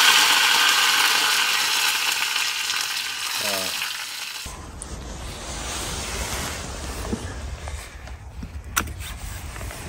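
A hissing, sizzle-like sound effect under a logo animation, fading over about four seconds and cut off suddenly. Then wind rumbles on the microphone outdoors, with a sharp click near the end as secateurs snip an aubergine stem.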